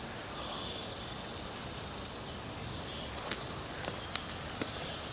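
Steady outdoor background noise, then a few footsteps on a hard path starting about three seconds in.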